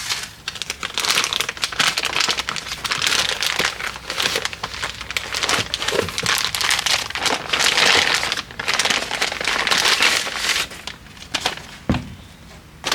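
Packaging crinkling and rustling as it is handled and unwrapped, in dense, irregular crackles, with a single thump near the end.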